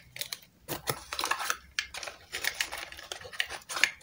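Small paperboard box and the handheld CNC offline controller inside it being handled and pulled out: rustling and scraping with a quick run of clicks and taps, and one sharper click near the end.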